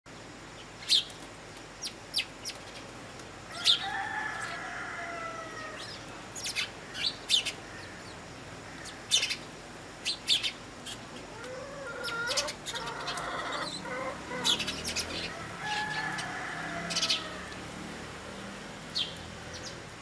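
A flock of house sparrows chirping at a seed feeder: short, sharp chirps scattered irregularly throughout. Twice, a longer call falls in pitch over about two seconds.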